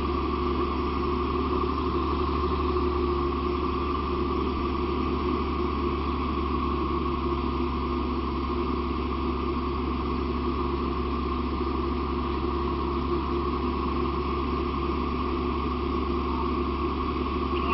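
Steady, unchanging drone of a running engine, typical of a fire engine's diesel turning its pump to feed the hose lines.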